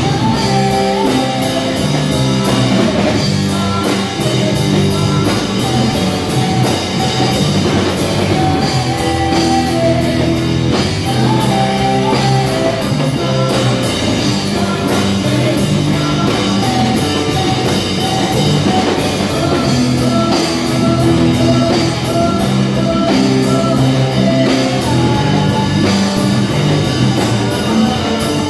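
A rock band playing live, with guitar and a drum kit keeping a steady beat.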